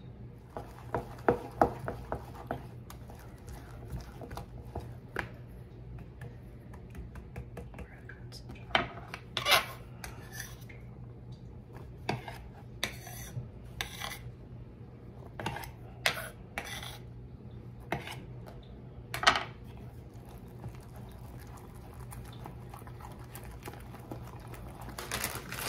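A spoon and knife clinking and scraping against a glass mixing bowl as corn muffin batter is stirred and diced jalapeño is scraped in, in irregular clicks with a few sharper knocks.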